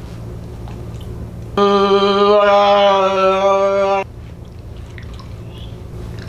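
A long hummed "mmm" of enjoyment at one steady pitch, starting about a second and a half in and held for about two and a half seconds, with a slight drop in pitch partway through.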